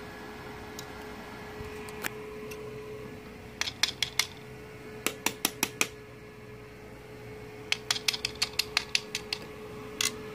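Quick runs of sharp clicks, a welding electrode tip tapped against hard tile, with no arc catching: the welder is not firing because its leads are connected the wrong way round. A steady hum runs underneath.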